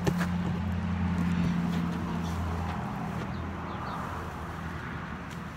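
Ground cloth rustling as it is lifted and handled, with a few light clicks, over a steady low engine hum that is loudest in the first couple of seconds and then eases off.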